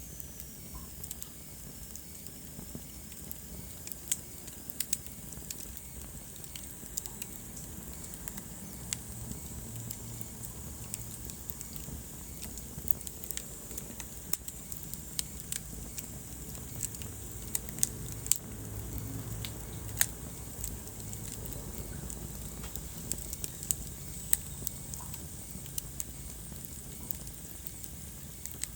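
Wood fire burning in a fireplace: a steady low rumble of flames with irregular sharp crackles and pops throughout, a few louder snaps standing out.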